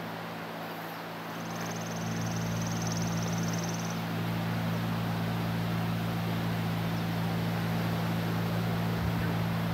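A machine's steady low hum throughout, with a brief high, rapidly pulsing trill from about a second and a half in, lasting a couple of seconds.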